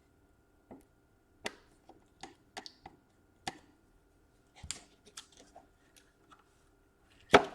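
Scattered small clicks and taps at irregular intervals, the loudest near the end, from hands handling Kapton tape and small tools on a laptop motherboard. A faint steady hum sits underneath.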